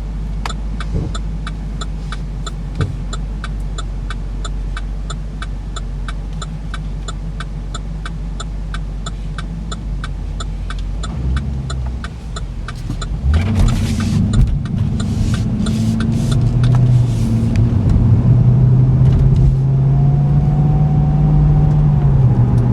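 Turn-signal indicator ticking steadily, about two to three clicks a second, over the low idle of the Cadillac CTS-V's supercharged V8, heard from inside the cabin. About thirteen seconds in, the ticking stops and the engine revs up as the car accelerates away through the turn, then runs on steadily under load.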